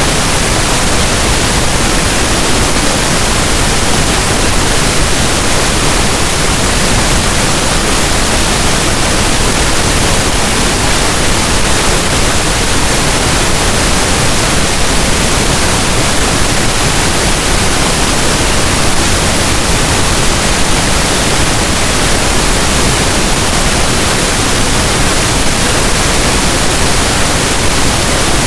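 Steady, electronically generated pink noise: an even hiss with no changes or breaks.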